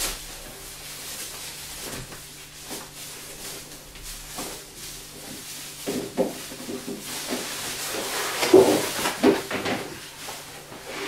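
Cardboard packaging being handled and unpacked: continuous rustling and scraping, with a run of knocks and thuds between about six and ten seconds in, the loudest near eight and a half seconds.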